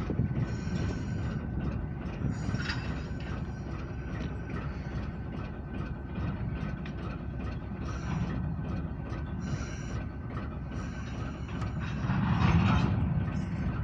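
Slow-moving short freight train: a diesel locomotive rumbling while the railroad cars clank and their wheels click and rattle over the track, getting louder about twelve seconds in.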